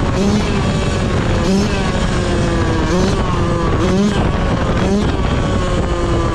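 Yamaha YZ125 125cc two-stroke single-cylinder dirt bike engine under way, its revs repeatedly climbing sharply and easing off, about once every second or so.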